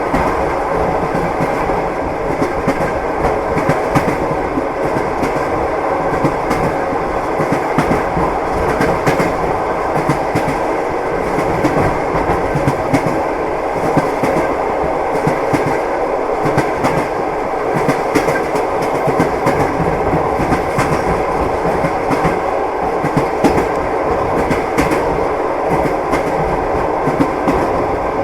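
Train wheels clattering over the rail joints as a train runs at steady speed, a continuous rumble with frequent sharp clicks.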